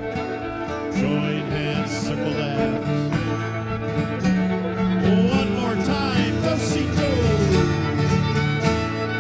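Live old-time string band playing a reel, fiddle carrying the tune over guitar chords and bass.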